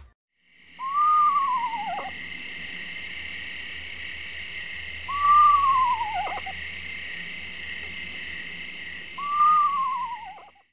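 An owl calling three times, about four seconds apart. Each call is a single, slightly quavering note that rises briefly and then slides down over about a second. A steady high-pitched drone runs underneath throughout.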